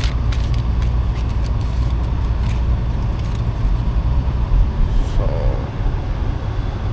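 Car driving, heard from inside: a steady low engine and road rumble.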